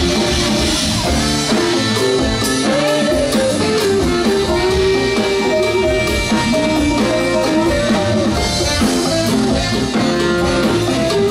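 Live band playing a funk song: electric guitar over bass and drum kit, steady and loud.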